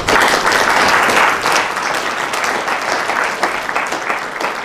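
Audience applauding, starting suddenly and easing off slightly.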